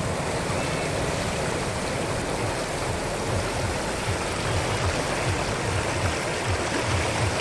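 Floodwater rushing in a steady, even roar of moving water.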